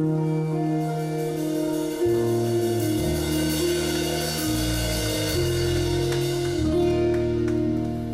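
Live band of guitar, bass guitar and drums playing the instrumental close of a song: held bass notes change every second or two under a wash of cymbals.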